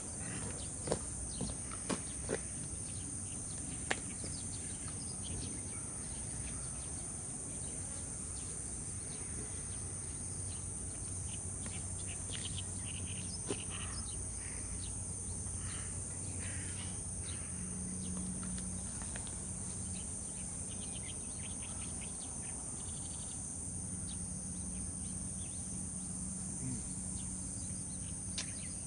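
Outdoor morning ambience: a steady high insect drone with scattered faint bird chirps, and a few sharp clicks or taps in the first four seconds.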